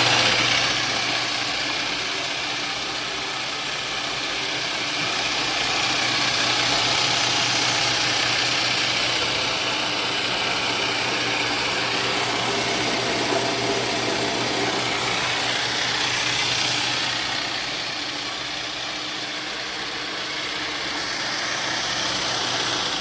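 Rockwell 17-600 multi-spindle drill press running under power: a steady motor hum under a broad whirring hiss.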